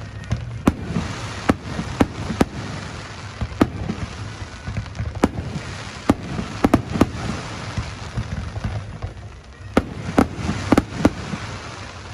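Aerial fireworks bursting: over a dozen sharp bangs at irregular intervals, some coming close together about seven seconds in and again near the end, over a steady low rumble.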